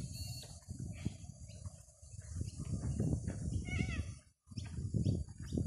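Birds chirping and calling in the trees, many short high chirps and a warbling call, over a low uneven rumble. The sound cuts out briefly about four seconds in.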